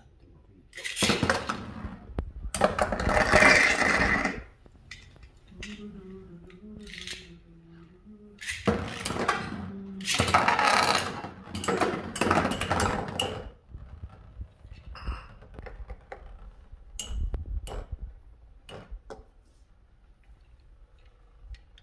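Beyblade spinning tops launched into a plastic stadium and battling: two long stretches of loud rattling and clinking as the metal-wheeled tops collide and scrape around the bowl, followed by scattered sharp clicks.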